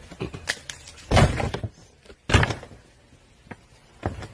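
Framed record plaques thrown down onto a pile of other plaques: two loud thuds with a clatter, about a second apart, and lighter knocks and clicks around them.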